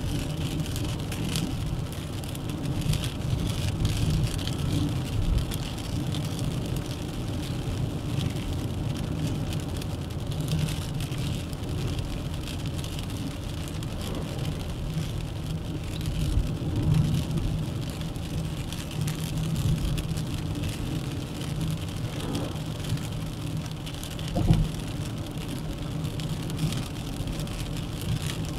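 Steady engine and road noise of a Dacia Duster 1.3 TCe 4x4 driving, with a single short thump about three-quarters of the way through.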